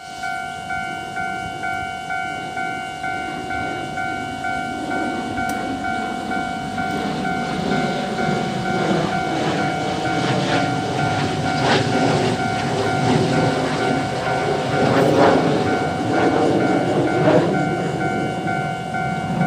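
Level-crossing warning bell ringing in a steady repeated ding, about two a second. A train rumbles up and passes over the crossing, growing louder from about five seconds in, with its wheels clacking.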